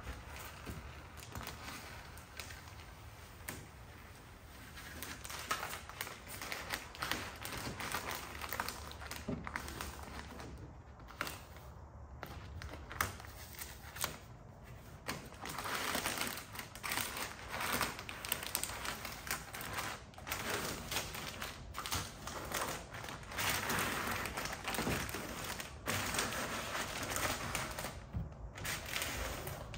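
Transfer paper being peeled off a vinyl hood stripe: a continuous crackling, crinkling rustle of paper and adhesive with many small clicks, louder in the second half.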